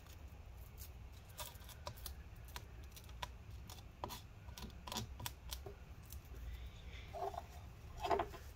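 Faint, scattered clicks and crackles of battery adhesive and thin battery pieces being peeled by hand from a MacBook Pro's aluminium top case, over a low steady hum. A slightly louder knock near the end comes as a plastic scraper is picked up from the bench.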